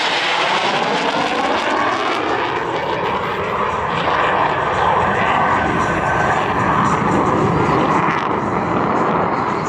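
F-16 Fighting Falcon jet noise as the jet flies past: a loud, continuous roar whose pitch sweeps and shifts as it passes.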